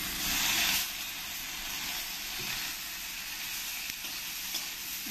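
Onion, garlic and chillies frying in hot oil in a small kadai: a steady sizzle, a little louder for about the first second as fresh coriander and mint leaves go into the pan.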